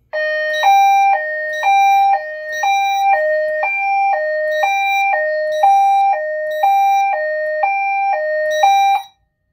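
EST Genesis fire alarm speaker strobe sounding a synthesized hi-lo evacuation tone. Two pitches alternate, each held about half a second, in a steady repeating pattern that cuts off shortly before the end.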